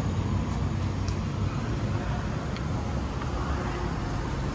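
Steady low outdoor rumble of distant road traffic.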